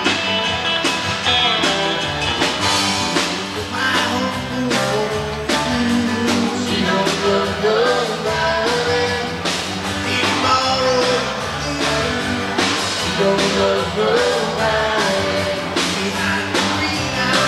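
Rock and roll music with singing and a steady beat.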